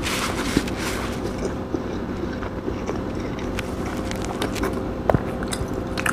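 Steady low hum in a quiet room, with a few soft clicks and taps; a sharper click comes about five seconds in.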